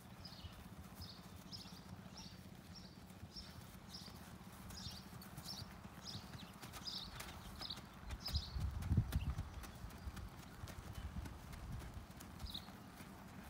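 A horse's hoofbeats and tack at a slow jog, in an even rhythm of about two beats a second. A louder low rumble comes about eight to nine seconds in.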